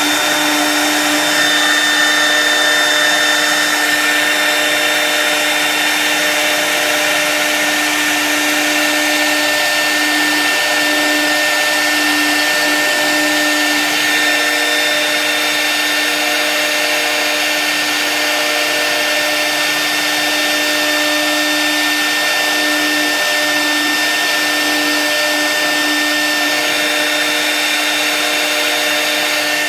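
CNC router spindle running steadily: a continuous high whine over an even rushing noise.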